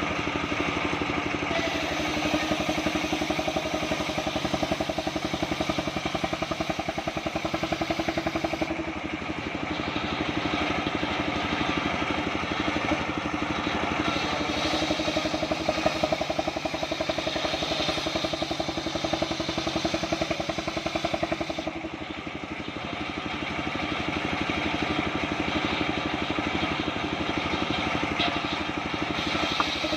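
Engine-driven homemade circular sawmill running steadily, its engine note even, with the sound of the blade and cut shifting briefly about nine seconds in and again near twenty-two seconds.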